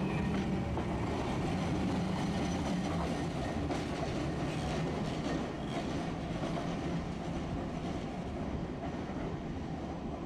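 Tosaden streetcar pulling away along street-running track: motor hum and wheels running on the rails. There is a low hum in the first few seconds, and the sound slowly fades as the tram draws away.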